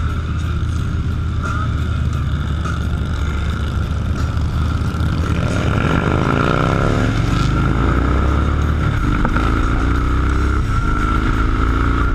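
Motorcycle engines running with a steady rumble. Their pitch climbs as they rev up, about halfway through and again near the end.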